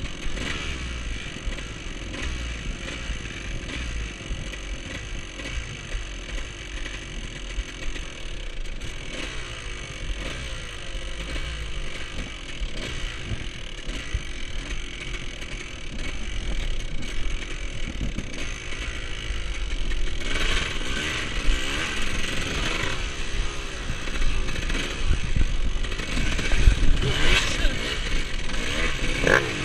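Off-road dirt bike engine running and revving, its pitch rising and falling as it is ridden; it grows louder about two-thirds of the way in, with sharper revs near the end.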